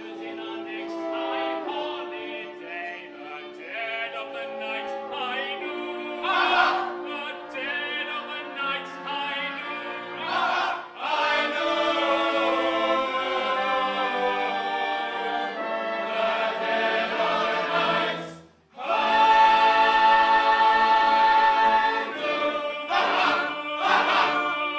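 Stage chorus singing an operatic ensemble number in full voice. About three-quarters of the way through, the singing cuts off for a moment, then a loud chord is held for a few seconds before the music goes on.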